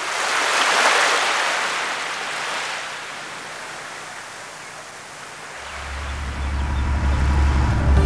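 Rushing water noise, like waves or sea spray, swells to a peak about a second in and fades away. About five and a half seconds in, a deep steady drone comes in and grows louder.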